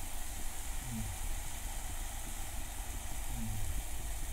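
Beetroot halwa (grated beetroot in reduced milk) simmering in a pan, a steady sizzling hiss with a low hum underneath.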